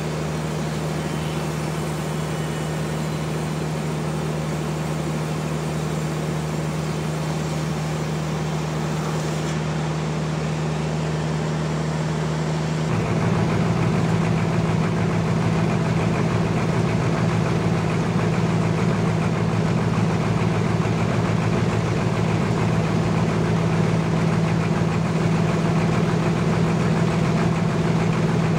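Sawmill engine running steadily. About halfway through, the sound turns louder and rougher and then holds steady.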